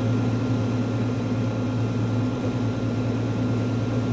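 Cirrus SR22's six-cylinder piston engine and propeller running at low power on the ground as the plane taxis: a steady, even drone.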